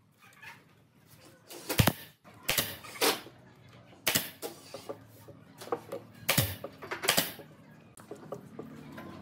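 Pneumatic nail gun firing about six sharp shots at uneven intervals, fastening rattan cane webbing to a wooden table top, the loudest about two seconds in.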